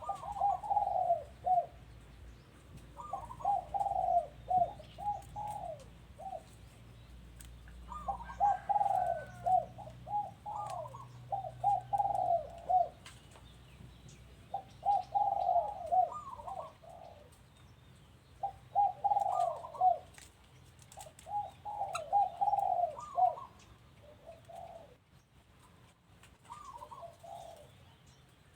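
Doves cooing: a phrase every few seconds, each a quick run of short coos that starts on a higher note.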